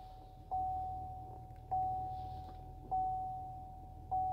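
Truck instrument-cluster warning chime dinging four times, one even ding about every second and a quarter, each a single clear tone that starts sharply and fades, as the ignition is switched on. A low steady hum runs underneath.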